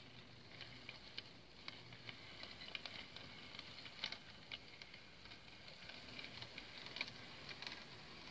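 Mehano HO-scale 2-6-0 camelback model steam locomotive running over sectional track and turnouts, its wheels giving faint, irregular light clicks and rattles over the rail joints.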